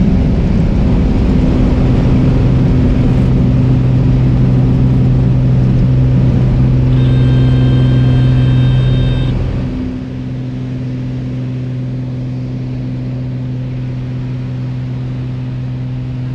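Light aircraft's piston engine and propeller heard from inside the cabin, a loud steady drone at takeoff power. A brief high tone sounds for about two seconds shortly before the drone drops. About ten seconds in, it settles to a quieter steady drone.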